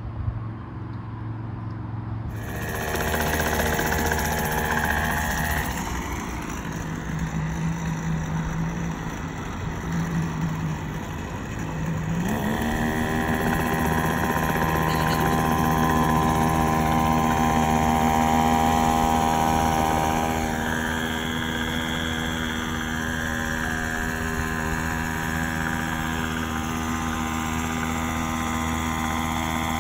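Poulan weed wacker's small two-stroke engine, rigged with a trolling propeller as a boat's outboard motor, running steadily. Its pitch rises about twelve seconds in and holds at the higher speed.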